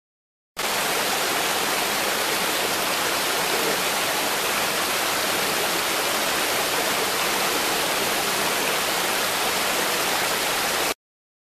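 Mountain creek water rushing steadily over rocky cascades. The sound cuts in about half a second in and cuts off abruptly near the end.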